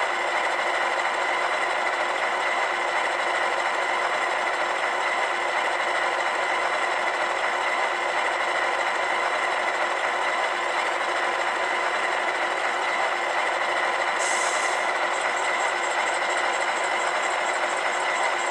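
LokSound 5 sound decoder in an HO-scale model EMD E9 locomotive playing a steady diesel idle through the model's small speaker, thin and without deep bass. About three-quarters through, a higher hiss joins in with a fast regular flutter.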